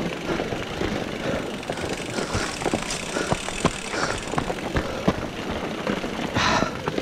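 Mountain bikes ridden in a crowded pack over a rough dirt track: a steady rattle of bike parts and tyres on dirt and gravel, with many small clicks and knocks. A brief louder burst comes near the end.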